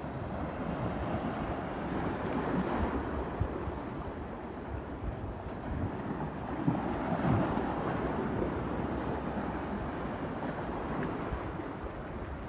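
Atlantic surf washing in, with wind buffeting the microphone. The wash swells louder twice, about two seconds in and again about seven seconds in.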